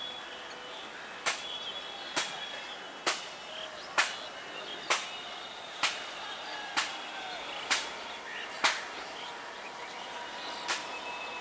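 Sharp clicks repeating about once a second, over faint steady background noise with a few thin high chirps.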